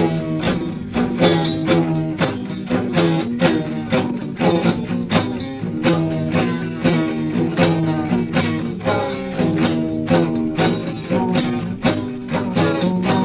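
Instrumental music with plucked strings over a steady beat.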